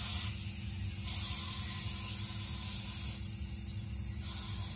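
DAF XG+ truck air suspension hissing steadily as its air springs are adjusted back to driving height after the ride-height button is pressed, the hiss swelling and easing a few times.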